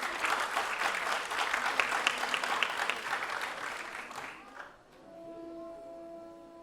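Audience applauding, the clapping thinning and dying out about four and a half seconds in. A single steady held note follows, the start of the music.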